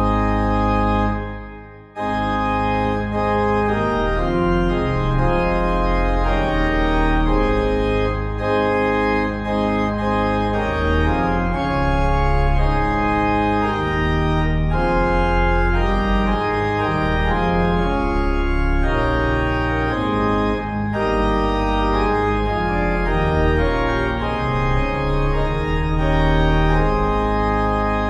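Organ music: sustained chords played on an organ, changing from chord to chord. The sound dies away about a second in and the playing starts again a moment later.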